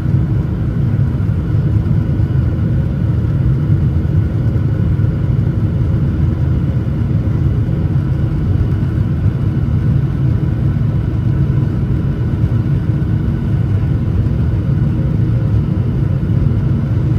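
Steady cabin rumble of a Boeing 737-900ER's CFM56-7B turbofan engines, heard from a window seat just behind the wing, with faint steady whine tones above the deep drone; the engines are at takeoff or climb power.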